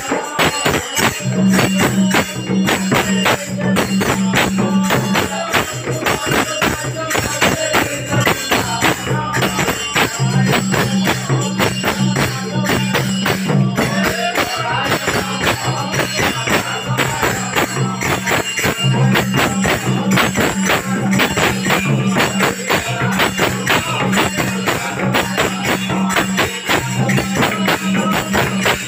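Namasankirtana devotional music: cane-wrapped barrel drums (mridanga/khol) beaten in a fast, dense rhythm with jingling hand cymbals, and voices chanting the divine name.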